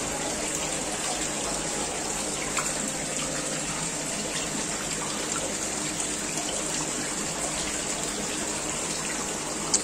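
Steady rush of running water in a goldfish tub, with a faint low hum underneath.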